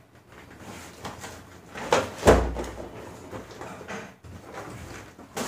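Cardboard firecracker boxes being handled around an open carton: light rustling and scraping, with a sharp thump a little over two seconds in and a click near the end.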